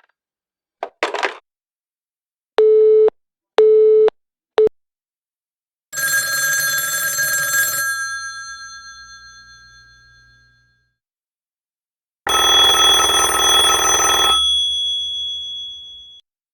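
A string of telephone sounds: a brief clicking rattle, two short steady beeps and a very short third one, then two bursts of a telephone bell ringing, each about two seconds long and ringing on as it fades.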